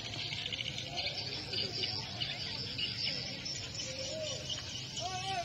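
A dense, steady chorus of high-pitched chirping from small animals, with faint distant voices underneath.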